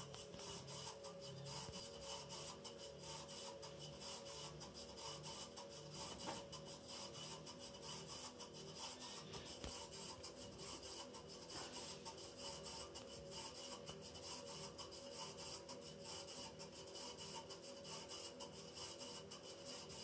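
Gorenje front-loading washing machine running with a steady grinding, rasping noise over a regular low pulsing, which the owner likens to a coffee grinder. It is a fault noise from a machine already on its third motor.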